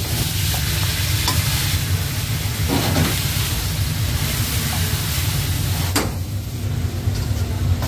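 Pork and coral mushrooms sizzling as they are stir-fried in a large metal wok, a metal ladle scraping and knocking against the pan, with one sharp knock about six seconds in. A steady low hum runs underneath.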